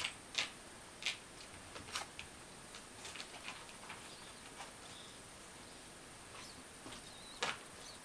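Faint, scattered scratchy ticks and scuffs of a one-month-old kitten's paws and claws on a wooden floor as it play-fights with a hand, with the sharpest ones near the start and near the end.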